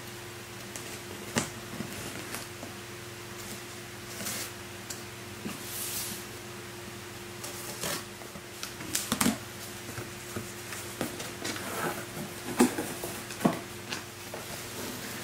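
A cardboard box being opened and handled: scattered sharp clicks, scrapes and short rustles of cardboard and packaging over a steady low hum.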